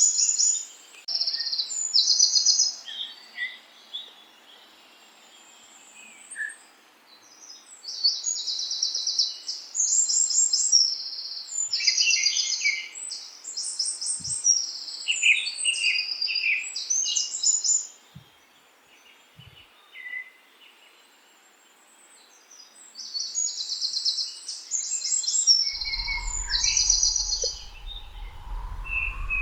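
Songbirds chirping in quick, high-pitched trilled phrases that come in bouts, with pauses of several seconds between them. Near the end a low rumble comes in under the birds.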